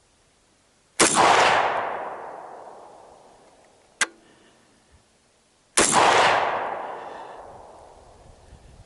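Two AR-15 rifle shots about five seconds apart, each followed by a long rolling echo that fades over two to three seconds. A short sharp metallic clink sounds between them.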